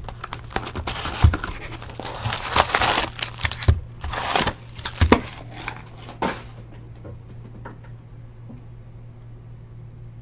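Cardboard box of Topps Chrome trading-card packs being torn open, with the wrapped packs pulled out and stacked: tearing and crinkling with a few soft knocks for about six seconds. After that only a low steady hum remains.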